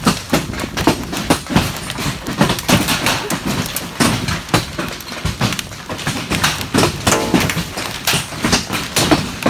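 Hailstorm: large hailstones pelting down, a dense, irregular run of sharp knocks and bangs, several a second, over a steady hiss of falling ice and rain.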